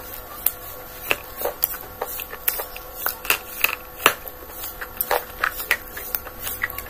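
Close-miked chewing: irregular crisp crunches and mouth clicks, several a second.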